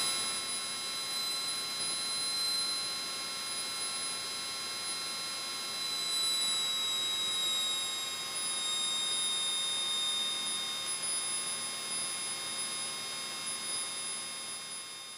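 Steady hiss and electrical hum with several high, steady whining tones in the Piper Cherokee's cockpit intercom audio, fading out near the end.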